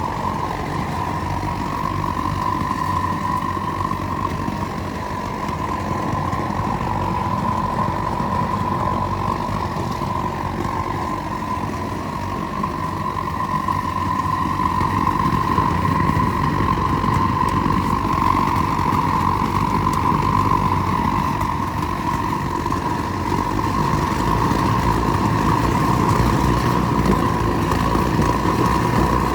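Three-burner gas forge running with all burners lit, a steady jet-like rush with a constant mid-pitched tone through it, as it heats up.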